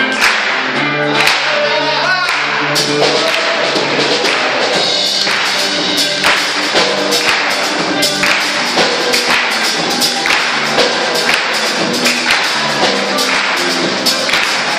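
Live gospel worship music: a band playing with a steady, quick beat of sharp percussion hits under sustained melodic notes, with singing.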